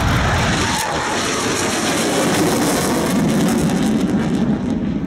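Panavia Tornado's twin Turbo-Union RB199 turbofans at high power as the jet lifts off and climbs away: a loud, steady jet noise that eases slightly near the end.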